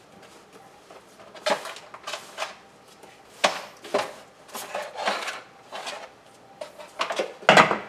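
Irregular clattering and scraping of hard objects being handled and moved, about nine short strokes with the loudest near the end.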